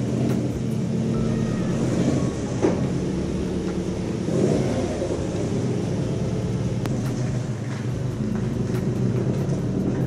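Subaru Impreza WRX's turbocharged flat-four engine running at low revs shortly after a cold start, as the car reverses out and pulls away, with a brief rise in revs about four seconds in.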